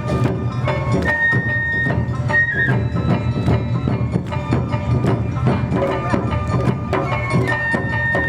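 Traditional Japanese festival music: a high flute holds long notes over brisk, steady percussion strikes.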